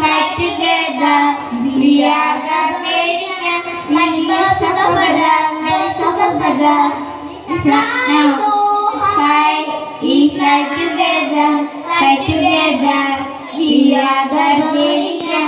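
A group of children singing a song together, with short breaks between phrases about halfway through and near the end.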